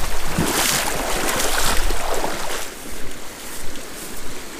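Shallow, rocky trout stream rushing, with wind rumbling on the microphone; the sound eases off about three seconds in.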